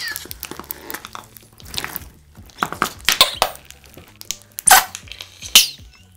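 Large batch of slime packed with jelly cubes (cut-up magic eraser sponge) being squeezed and kneaded with fists, giving irregular squelches and sharp pops as trapped air bursts out; the loudest pops come near the end.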